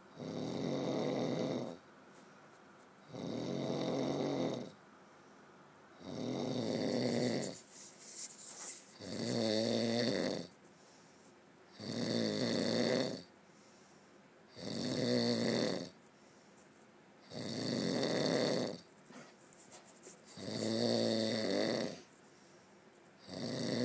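Snoring: a long, loud snore about every three seconds, each lasting about a second and a half, with quiet gaps between.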